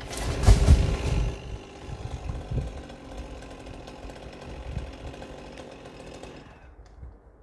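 Chainsaw during tree felling, with a loud, deep thud about half a second in, then the saw running on steadily and fading away.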